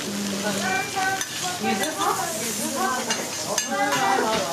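Steak, sliced garlic and onion sizzling on a steel teppanyaki griddle, a steady hiss of frying, with a few light metal clicks of the chef's tongs near the end.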